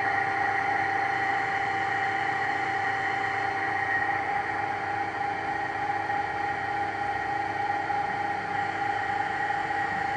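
Runmaster RUN 330×1000RR tool-room lathe running under power with the cross-slide power feed engaged: a steady mechanical hum with a constant high whine from the drive.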